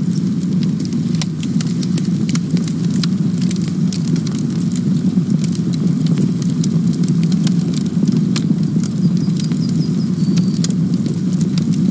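Campfire burning: a steady low rush of flames under frequent sharp crackles and pops of burning wood.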